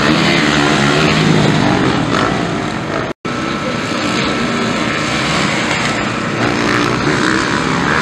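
Motocross dirt bike engines running on a dirt track, their pitch rising and falling as the riders work the throttle. The sound drops out for an instant about three seconds in.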